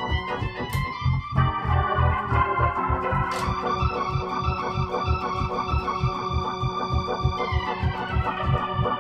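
Nord C1 combo organ playing in a Hammond style: held chords over a bouncing bass line of about four notes a second. Two short sharp clicks come about a second in and again about three and a half seconds in.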